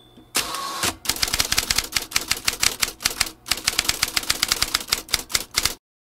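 Typewriter keystroke sound effect: rapid clacks of keys striking as caption text is typed out. About half a second in the clicks pause for a short sliding, carriage-return-like sound, then the typing resumes and cuts off suddenly near the end.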